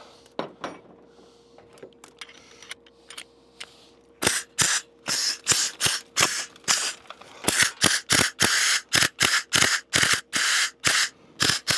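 Pneumatic air hammer with a chisel bit fired in short bursts, about two or three a second from about four seconds in, each burst a sharp blast of air and hammering, stopping and starting rather than running steadily. The tool is not working properly, and its user wonders whether the air line is kinked.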